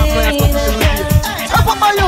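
Dancehall reggae riddim juggling mix playing: a heavy, regular bass drum beat under a vocal line.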